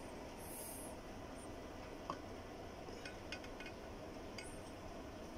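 A few faint, light metal clicks and clinks from handling the piston and ring compressor at the cylinder, over low workshop background noise.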